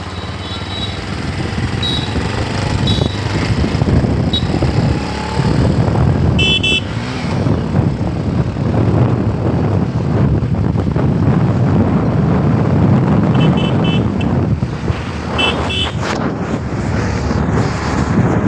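Motorcycle running along a road with heavy wind rush on the microphone. Short horn beeps sound several times, the clearest a few seconds in and again near the end.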